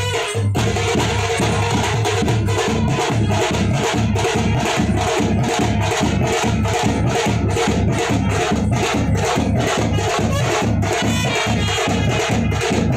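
Music with a fast, steady percussion beat and brass.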